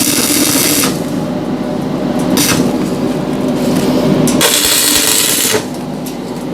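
Welding on a door frame: short bursts of hissing noise, the longest about a second long near the end, over a steady machine hum.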